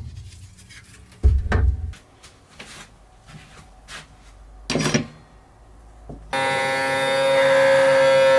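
A few knocks and clicks of metal parts being handled. About six seconds in, a steady electric buzz starts abruptly, from the powder coating equipment being switched on.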